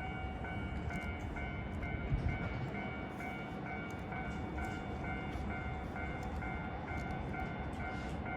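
Japanese railway level-crossing warning alarm ringing its repeated 'kan-kan' tone, about two strokes a second, over the low rumble of a train on the Jōban Line.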